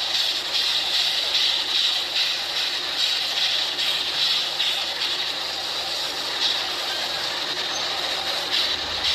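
Model railroad freight train of hopper cars behind a steam locomotive rolling past on the layout track: a steady hiss of wheels on the rails with a light, fairly regular clicking.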